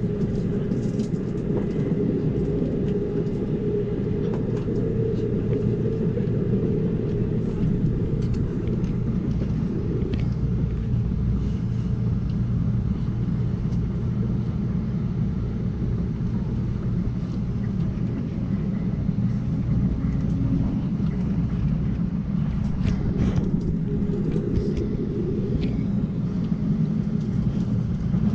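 Steady low rumble of an Amtrak Cascades passenger train running at speed, heard from inside the car: wheels rolling on the rails and the car's running noise, with a few faint clicks late on.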